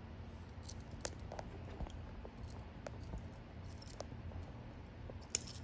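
Small scattered clicks and taps of metal jewelry pliers handling a jump ring on a beetle wing, with a sharper click near the end, over a low steady hum.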